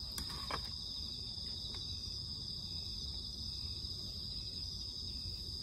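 Crickets chirping in a steady evening chorus, a continuous high trill, with a few faint clicks in the first second.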